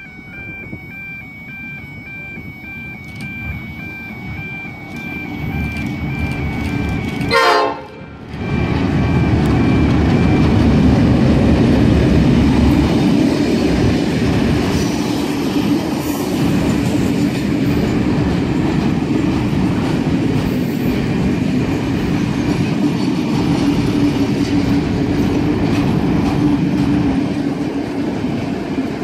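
A heritage train hauled by NSW 42 class diesel-electric locomotive 4204 approaches and passes close by. Its rumble builds, the locomotive gives one short horn blast about seven and a half seconds in, then the engine and a long rake of vintage passenger carriages roll past with a loud, steady drone and rattle of wheels on the rails.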